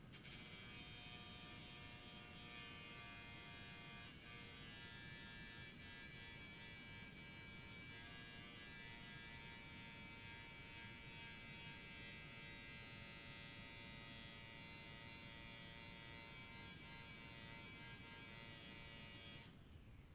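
Angle grinder fitted with a thin cutoff disc running steadily, grinding the edge of a lawn mower blade; a faint, even whine that stops suddenly near the end.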